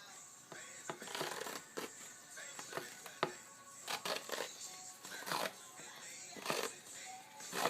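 Grip tape being pulled off the roll and wrapped around a hockey stick handle, a series of short, irregular ripping rasps with a sharp click about three seconds in. Music plays faintly underneath.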